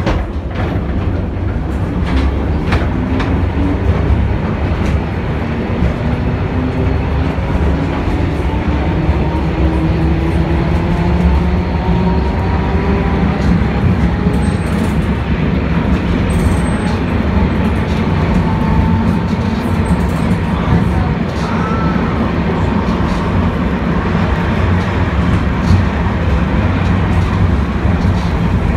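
Interior running noise of the vintage M-24 tram: a steady low rumble of steel wheels on the rails, with occasional sharp clicks. Over the first half a rising whine climbs in pitch as the electric motors gather speed.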